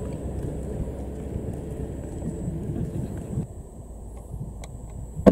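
Steady low outdoor rumble between aerial firework shells, then a single sharp firework bang near the end.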